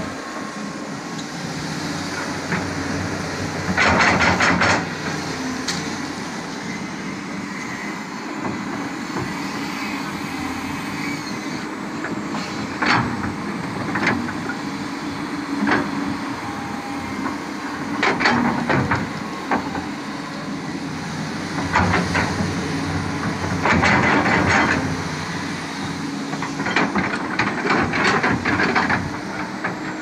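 Crawler excavator's diesel engine running steadily while its steel bucket digs a septic tank pit. Bursts of bucket scraping and clanking against soil and stones come every few seconds, loudest about four seconds in and again near the end.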